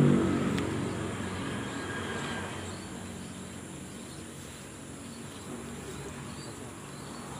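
Steady high-pitched insect chirring, with a low engine-like hum that fades out within the first second.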